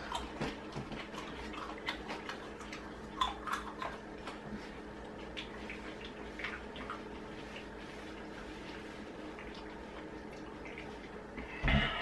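Scattered small wet clicks and chewing from two people eating raw garlic cloves, over a low steady room hum; the clicks thin out after the first few seconds. About a second before the end comes a short, louder vocal sound.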